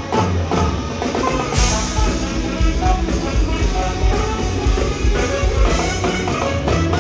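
Live rock band playing loudly, with a saxophone solo over drums and guitar.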